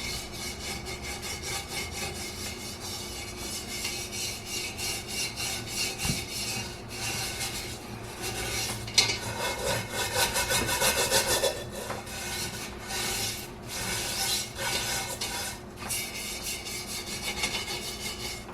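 Brisk scrubbing of a cast iron kettle: rapid rasping strokes with a few short pauses, as softened paint and grime are worked off the iron.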